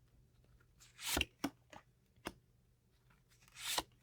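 Tarot cards being handled: two short brushing slides of cards, with a few light clicks as cards are laid down on the table.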